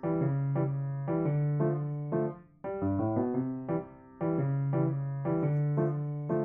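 Background piano music: a melody played in short phrases, with brief breaks between them.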